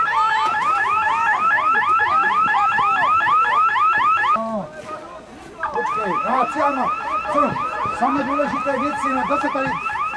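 Electronic alarm siren sounding a rapid rising whoop, about four sweeps a second, as the camp's alarm signal. It breaks off about four seconds in, then starts again a second and a half later.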